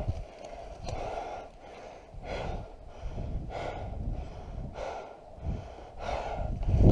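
A person breathing heavily close to the microphone, about one breath every second or so, over low rumble of movement, with a louder low thump near the end.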